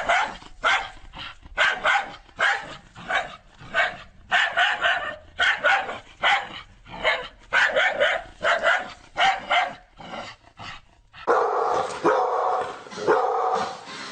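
Dog barking repeatedly, in short barks under a second apart. After a short lull about ten seconds in, it breaks into a denser, almost continuous run of barks.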